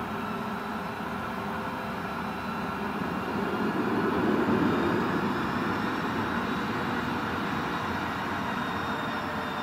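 Twin Williams FJ44 turbofan engines of a Cessna 525 CitationJet running on the ground: a steady jet rush with a thin turbine whine, swelling briefly about halfway through as the jet begins to taxi.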